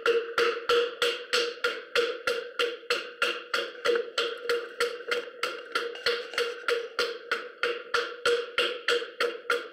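Off-centre lump of wet clay spinning on an electric pottery wheel during spiral wheel wedging, thumping against the potter's hands once per turn in an even rhythm of about three to four knocks a second, over the steady hum of the wheel's motor.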